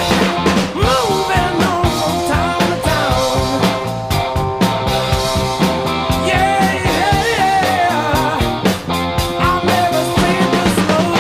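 Rock music with a sung vocal and a steady drum beat.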